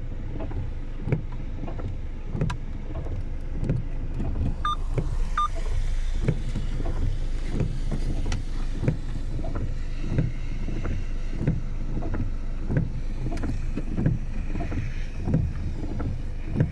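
Steady low drone of a vehicle driving in heavy rain, with soft knocks repeating about every two-thirds of a second and two short high beeps about five seconds in.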